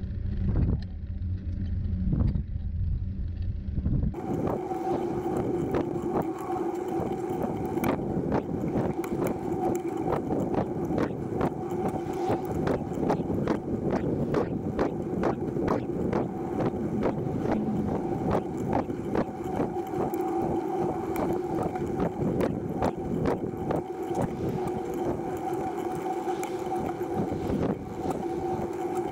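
TerraTrike recumbent tricycle rolling along a paved path, heard from a camera mounted on the trike: a low rumble for the first few seconds, then a steady hum with constant small rattling clicks.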